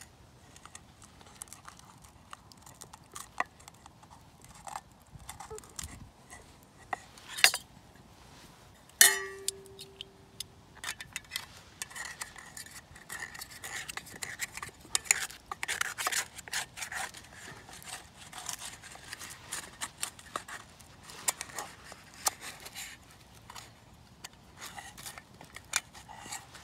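A metal utensil scraping and clinking against a steel frying pan, prising loose a pizza base that has stuck and burnt on to the ungreased pan. About nine seconds in, one sharp clink leaves the pan ringing briefly.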